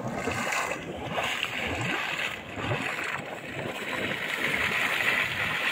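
Small mud geyser in a flooded paddy field: muddy water bubbling and splashing steadily as gas wells up through it.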